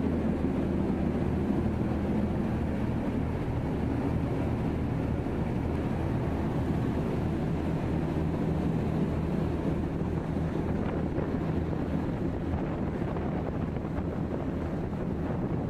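Passenger boat's engine running steadily at cruising speed, a constant low drone, with the wake water rushing along the hull and wind on the microphone.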